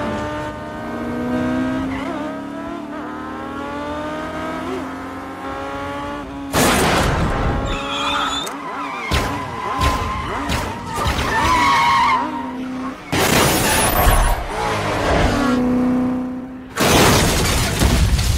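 Action-film chase sound mix: a motorcycle engine revving with its pitch climbing for the first several seconds, then loud sudden crashes and skidding tyres with further engine revs in between, over music.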